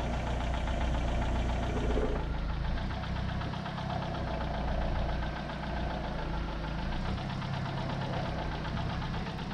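An engine idling steadily at low speed.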